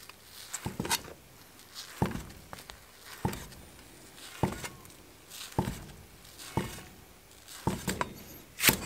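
Steel cleaver slicing a soft, spongy black bolete mushroom on a wooden chopping block, each stroke ending in a sharp knock on the board, about once a second. Near the end the knocks come quicker as green chili peppers are sliced.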